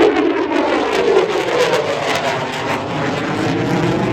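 Aircraft flying past loud and low, a dense engine roar whose tone slowly falls as it passes.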